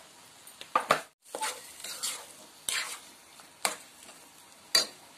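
A metal spoon stirs and scrapes scrambled egg masala around a non-stick frying pan in about six short strokes, with a faint sizzle of the frying underneath.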